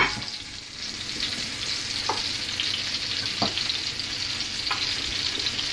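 A blender jar clunks as it is lifted off its base, then a few light clinks over a steady hiss from a pot of beef broth simmering on the stove.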